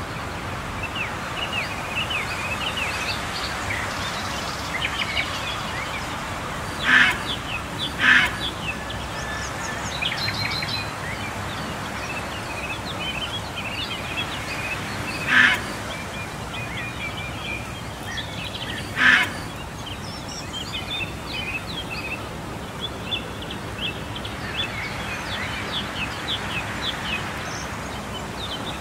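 Many small birds chirping over a steady background hiss of outdoor ambience, with four louder short bird calls about seven and eight seconds in and again around fifteen and nineteen seconds.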